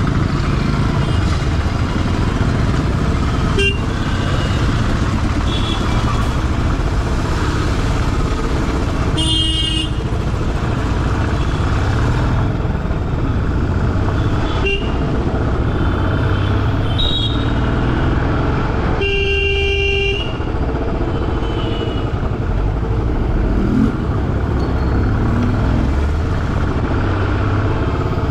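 Motorcycle engine and road rumble in heavy traffic, with vehicle horns honking: a few short toots and two longer blasts, about ten and twenty seconds in.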